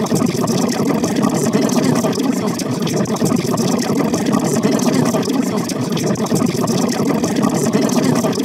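Many copies of a cartoon character's voice layered over one another, merging into a continuous, dense rumbling babble with no gaps and no words that can be made out.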